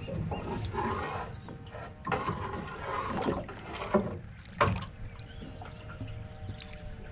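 Alvey sidecast fishing reel being wound in against a hooked fish, with mechanical clattering and rattling. Two sharp knocks come a little past halfway.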